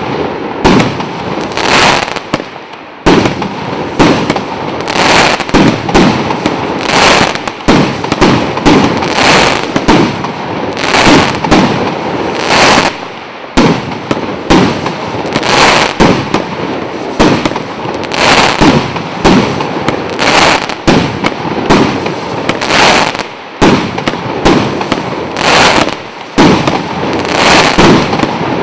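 A 100-shot 1.25-inch consumer fireworks cake firing shot after shot, about one sharp report a second, each shell bursting overhead.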